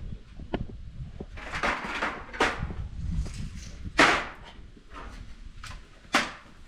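Window panes being handled and slid in their frames: a few scraping swishes in the first half, a sharp knock about four seconds in, and another just after six seconds.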